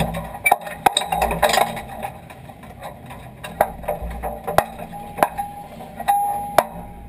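Irregular sharp knocks and clicks in a dirt-track race car's cockpit, over a low rumble, with two short steady tones near the end.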